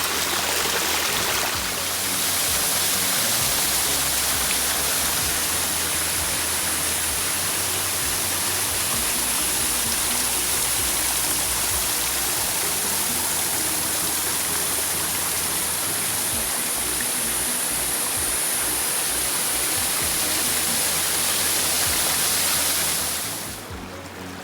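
Steady rushing of flowing water, a stream or small waterfall, that drops away near the end. Quiet background music runs underneath.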